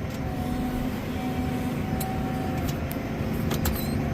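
Tractor engine running steadily, with a few light clicks in the second half.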